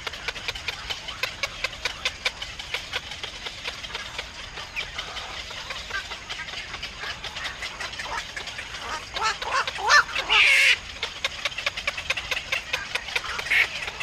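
Black-crowned night herons at the nest: a fast, dense run of short dry ticks, with a burst of harsh squawking calls past the middle, the loudest a short harsh call about ten and a half seconds in.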